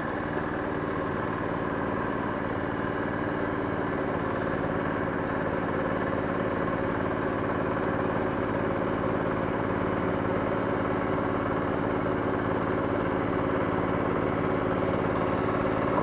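Two-wheel hand tractor engine running steadily as it ploughs a flooded rice paddy.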